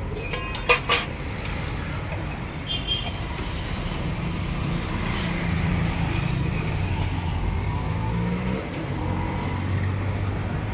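Street traffic with a motor vehicle engine running close by, a low steady hum. In the first second, a few sharp clinks of a steel ladle against steel pots.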